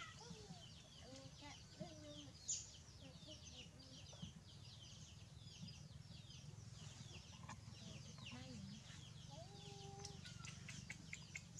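Faint clucking of chickens, with a steady patter of short, high, falling cheeps throughout.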